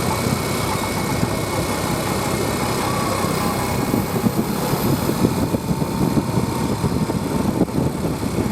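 A motor vehicle's engine running steadily amid roadside traffic noise, with no horn tune sounding.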